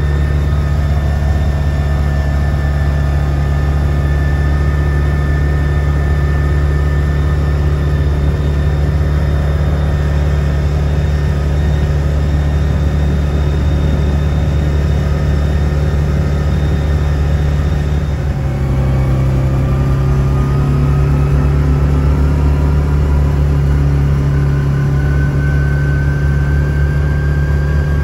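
Side-by-side UTV engine running on the move, a steady drone. About two-thirds through the pitch shifts, then climbs slowly as it speeds up.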